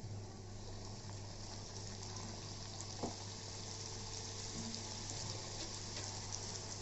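Bhatura dough deep-frying in hot oil in a kadhai: a steady sizzle with fine crackles, and a single click about three seconds in.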